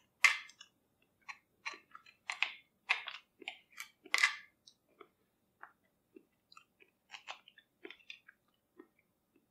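Wet chewing and lip-smacking over a mouthful of raw beef bone marrow: a string of short, moist clicks, busier in the first half and thinning out after about five seconds.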